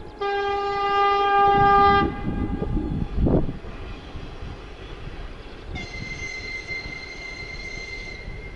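A horn sounds twice: a low blast of about two seconds just after the start, then a higher-pitched blast of a little over two seconds near the end. A single thump comes in between, a little over three seconds in.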